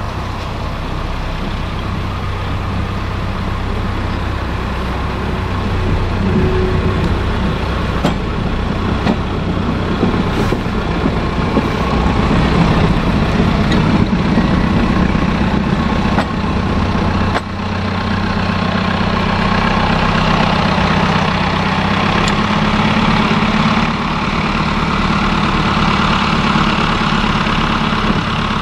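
Diesel engine of the railcar AD9117 running steadily as the railcar moves along the track, a little louder from about six seconds in.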